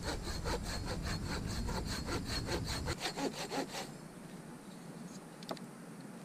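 Hand saw cutting branch stubs off a birch pole in quick, even back-and-forth strokes, about six a second, that stop about four seconds in.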